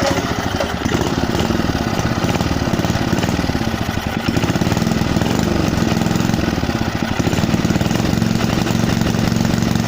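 Rebuilt Briggs & Stratton 3 hp single-cylinder four-stroke petrol engine catching at once and running steadily on its first start after a rebuild with a replacement crankshaft.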